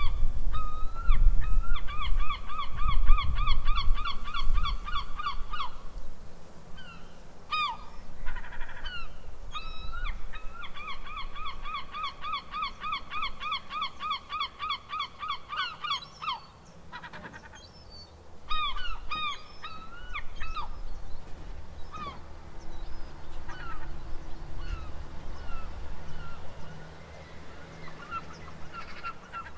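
Gulls calling: two long runs of rapid laughing calls, about four a second, then scattered single calls, with a low rumble underneath in the first few seconds.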